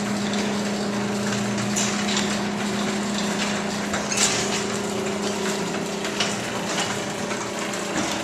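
LiftMaster 3280 belt-drive garage door opener running steadily as it lowers the door. A constant motor hum, with the door's rollers rattling along the track and a few clicks.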